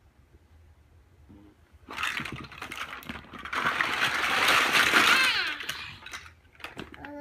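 Mega Bloks plastic building blocks clattering and tumbling out of an upended plastic bag onto carpet, with the bag rustling. The clatter starts about two seconds in and dies away about six seconds in.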